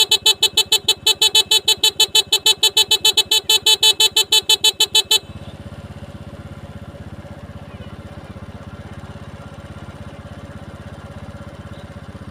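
Motorcycle horn beeped in a rapid, unbroken string of short honks, sounded to call water buffalo. It stops abruptly about five seconds in, leaving the motorcycle's engine idling steadily.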